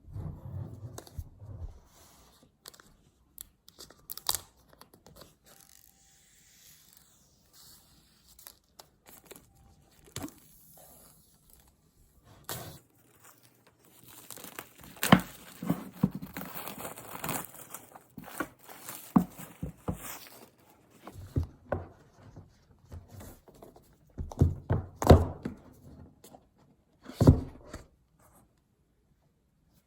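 Packaging of an iPad unboxing being torn and crinkled, with irregular clicks and rustling that thicken into a longer stretch of tearing and crinkling midway. Several soft thuds follow near the end as box parts are set down.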